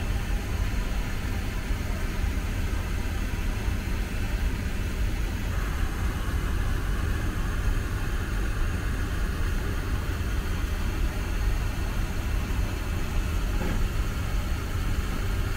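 Steady cabin noise of a Boeing 777-300ER airliner: a deep, even rumble from the engines under a constant hiss. About five seconds in, the hiss grows slightly louder.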